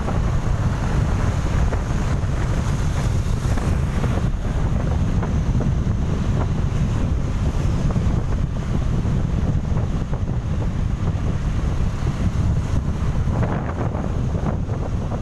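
Wind buffeting the microphone of a moving motorcycle, a steady low rumble of wind and road noise.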